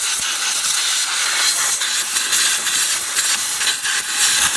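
Compressed air blasting from a handheld air blow gun into the engine's spark plug wells: a loud, steady hiss, blowing out debris before the spark plugs are removed.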